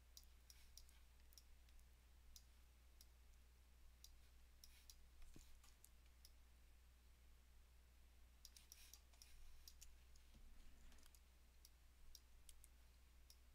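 Near silence with faint, irregular clicking from a computer mouse, bunched in short clusters, over a low steady hum.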